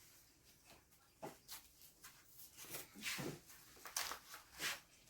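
Blood pressure cuff being handled and wrapped around the upper arm: a series of short, irregular rustles and rasps of fabric, loudest around three and four seconds in.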